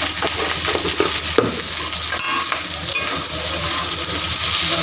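Chopped onion, capsicum and green chilli sizzling in hot oil in a metal kadai, stirred with a metal spatula that scrapes and clinks against the pan now and then over a steady hiss.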